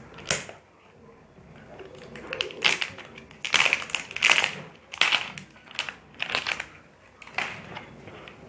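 Plastic shrink-wrap safety band crinkling and tearing as it is peeled off the lid of a whey protein tub, in a string of short, irregular rustles starting about two seconds in.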